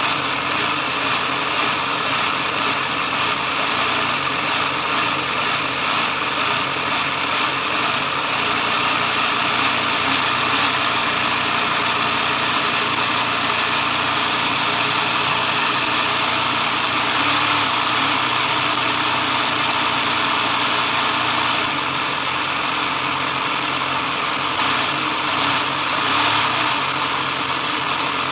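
A LEGO electric motor running steadily, driving a LEGO model four-cylinder engine's plastic pistons, crankshaft and rubber timing belt, with a fast, even mechanical rattle.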